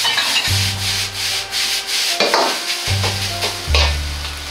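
Metal ladle scraping and turning rice in a Chinese wok, in repeated quick strokes, with the rice sizzling and a gas wok burner running steadily underneath.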